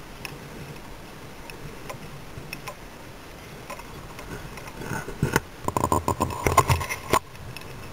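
Steady low background noise with scattered light ticks, then about two seconds of loud, rapid clattering knocks that cut off suddenly.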